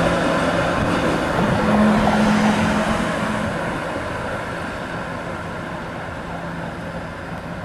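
SEPTA Kawasaki LRV streetcar running away down the street: its running noise and a low steady hum fade steadily as it recedes, over street traffic noise.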